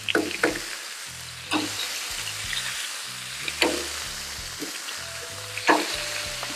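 Ground beef sizzling in oil on a hot Blackstone flat-top griddle as it is smashed flat with a steel spatula and scraper, with several sharp scrapes and clacks of metal on the griddle plate.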